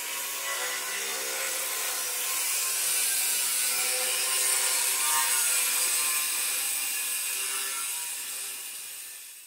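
Angle grinder with its disc on the steel of a rolling shop shutter: a steady hissing whine with a wavering tone, growing louder toward the middle and fading near the end.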